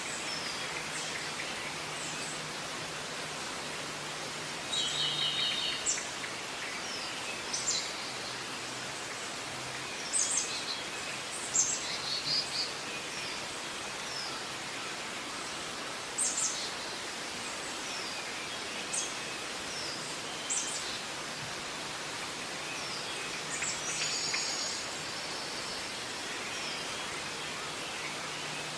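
Birds chirping now and then, short high calls singly and in quick clusters, over a steady hiss of background noise with a faint low hum.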